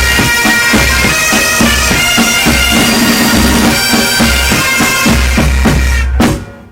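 Military pipe band playing: bagpipe melody over the pipes' steady drone, with regular bass drum beats. The tune ends with a final stroke about six seconds in and the sound dies away.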